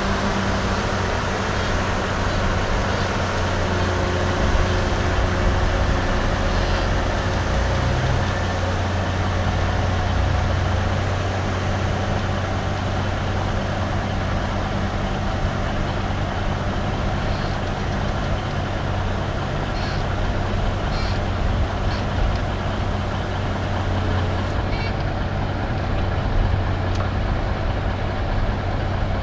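Heavy diesel engine running steadily as a Cat log-loading shovel lifts and swings logs onto a logging truck, with a few faint knocks about two-thirds of the way through.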